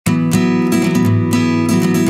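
Background music with a strummed acoustic guitar, starting abruptly at the very beginning.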